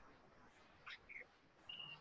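Near silence: room tone with a few faint high bird-like chirps, one quick sweep about a second in and a short steady whistle near the end.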